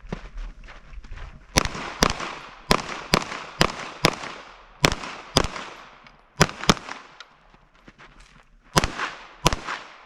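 Rapid pistol-calibre gunfire in an IPSC stage: about a dozen shots, mostly fired in quick pairs (double taps on each target), each with a short ringing echo. There are brief pauses between the pairs as the shooter moves between targets.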